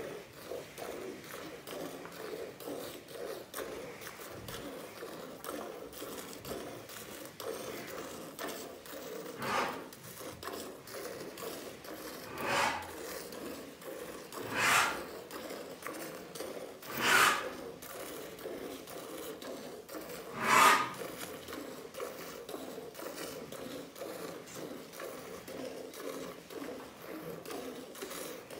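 Cow being milked by hand: quick alternating squirts of milk into a steel pail already full of foamy milk, a steady rhythmic swishing. Five short, louder hissing sounds stand out in the middle.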